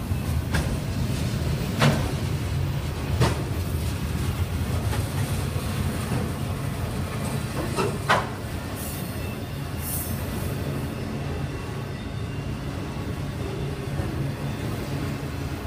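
Freight train of autorack cars rolling past at close range: a steady low rumble of wheels on rail, broken by a few sharp knocks, the loudest about 2, 3 and 8 seconds in.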